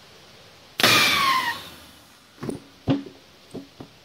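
A rifle bullet strikes a pressurised PET beer keg: a sudden loud bang and a rush of escaping gas with a falling whistle that dies away within a second. The bullet passes straight through, so the keg vents its gas rather than bursting. Several short thuds follow.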